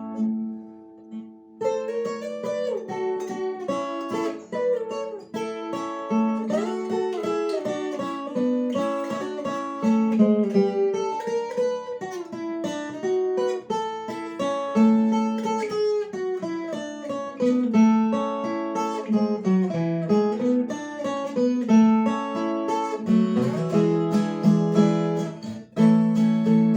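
Instrumental music on a plucked acoustic string instrument: a picked melody moving up and down over repeated low bass notes, with no singing.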